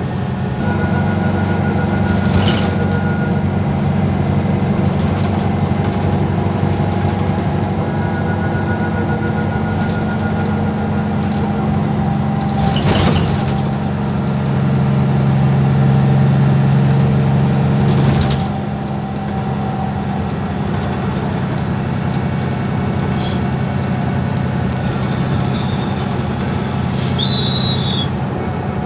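MAN Lion's City bus heard from inside while under way: a steady diesel engine drone with road noise, and a few sharp rattles of the bodywork. After a knock about two-thirds of the way in, the engine note drops and runs on quieter.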